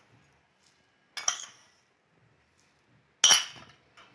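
A metal spoon clinking against a dish twice, about two seconds apart, the second clink louder, as spoonfuls of sugar are tipped into a spice mix.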